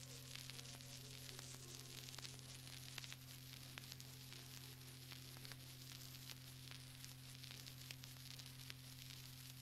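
Surface noise of an old 1930s broadcast recording between items: a dense crackle of fine clicks and hiss over a steady low hum.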